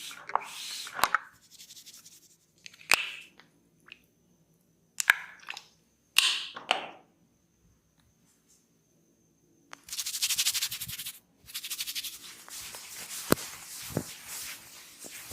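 Close-up massage handling sounds: short bursts of rubbing and crackling with scattered sharp clicks and brief silent gaps, then a longer, denser crackling rub about ten seconds in.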